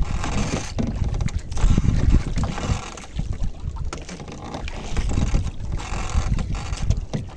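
Wind buffeting the microphone in gusts: a low rumble that swells and dies away, with a hiss of wind over it.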